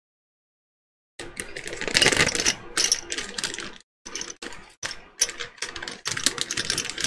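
Plastic miniature bases clinking together inside a crinkling plastic bag as it is handled, a dense run of light clicks and rustles that starts about a second in.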